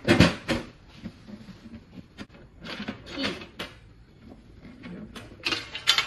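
Sheet-metal enclosure of a wall-mount fiber optic patch panel being handled and its hinged metal doors opened, giving clusters of clunks and rattles near the start, around the middle and near the end.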